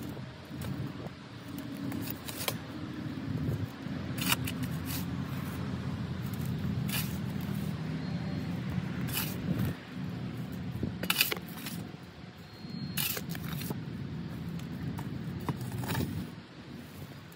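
Shovel scraping into loose garden soil and tipping it into a wheelbarrow, a sharp scrape or clatter every two seconds or so, over a steady low rumble.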